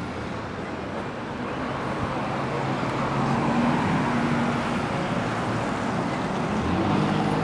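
Motor vehicle traffic noise: a broad rushing sound that slowly grows louder, with a steady low engine hum coming and going under it.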